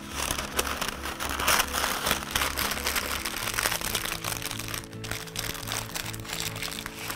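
Baking (parchment) paper crinkling and rustling as it is folded and crimped shut around a salmon fillet to close a papillote, over background music with a steady, repeating bass line.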